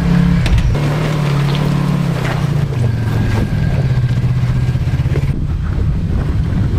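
Off-road 4x4's engine running at low revs while it crawls around a large trail rock, its pitch dipping slightly about three seconds in, with a few short knocks.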